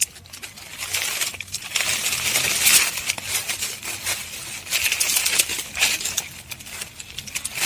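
Dry fallen leaves rustling and crackling in several short bursts as a hand works pruning shears in to cut a rose rootstock sucker at its base. Light metallic clicks come from the shears.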